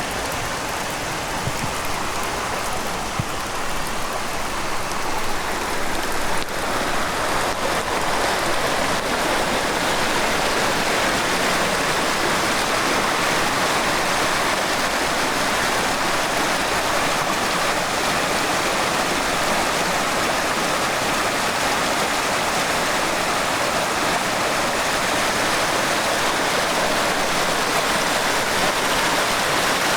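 Rushing stream, swollen with runoff from heavy rain, mixed with steady rainfall. The water sound grows louder over the first several seconds, then holds steady.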